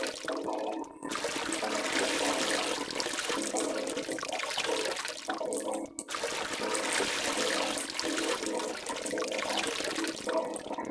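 Stomach growling, a continuous watery gurgling and churning that breaks off briefly about a second in and again around six seconds.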